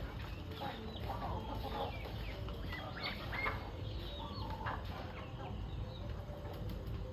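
A flock of chickens clucking and calling, with many short overlapping calls throughout, as the birds gather at feeding time.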